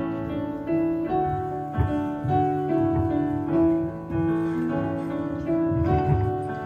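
Keyboard playing piano-sound accompaniment: held chords over bass notes, changing every half second to a second.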